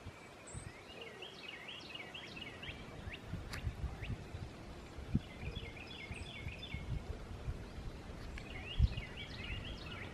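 A songbird singing a short phrase of quick high chirps three times, a few seconds apart, over low rumbling wind gusts on the microphone. A single low thump comes near the end.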